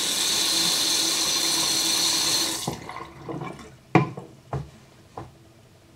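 Tap water running into a sink, shut off about two and a half seconds in, followed by a few short knocks.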